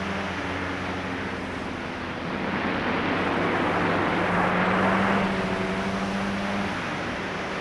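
Sport bike engine running at a steady note under way, heard from on the bike, with wind rushing over the microphone that swells louder in the middle and eases off again.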